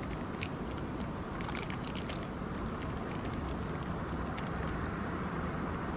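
Steady wind rushing over the microphone, with scattered faint crackling clicks in the first two seconds or so and a few more around four seconds in.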